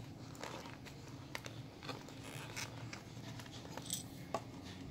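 Handling noise as a steel-braceleted wristwatch and its fabric box pillow are picked up and lifted out of the box: scattered light clicks, rustles and scrapes, the sharpest near the end.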